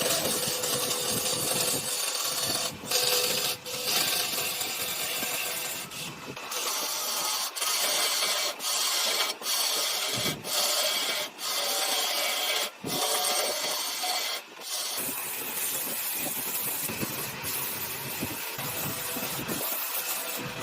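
A woodworking tool working wood in repeated strokes about a second long, each broken off by a brief pause, then running on more evenly for the last few seconds.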